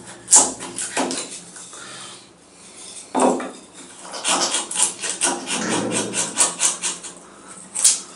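Folding knife blade carving a wooden block by hand: a run of uneven scraping cuts, some short and sharp, some longer, as shavings are taken off the wood.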